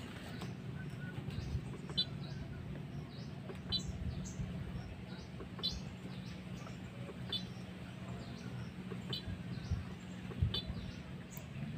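A bird calling over and over, a short high chirp of a few quick notes about every two seconds, with a few other brief high calls in between. Under it runs a steady low hum.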